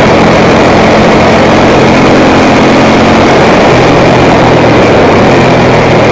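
Ducati Monster 900's air-cooled V-twin running at speed, heard through heavy wind rush on the camera microphone. The engine's pitch steps down a little about three and a half seconds in.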